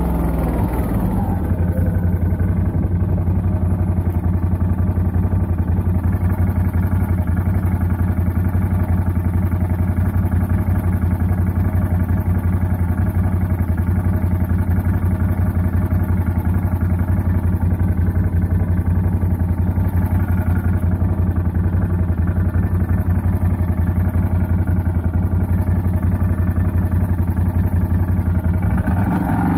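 CF Moto 850 quad's engine running at steady revs while the quad is ridden, the note holding almost constant, with the revs shifting briefly at the very start and again near the end.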